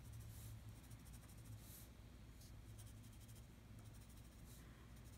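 A few faint scratches of a colored pencil tip marking dots on a paper worksheet, over a steady low room hum.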